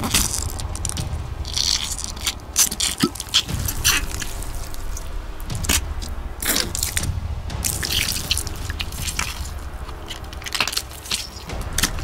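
A quick run of foley gore sound effects: short wet squelches, splatters and cracks, one after another at an uneven pace, over a steady low rumble.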